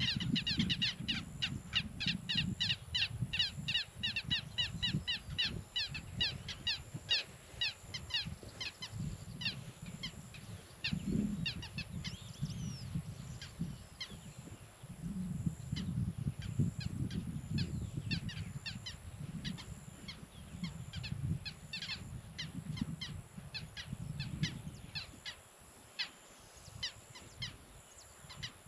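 Many birds calling in quick, short, harsh notes, densest in the first several seconds, then thinning out and coming back in bunches. Under them runs a low, uneven rumble that drops away near the end.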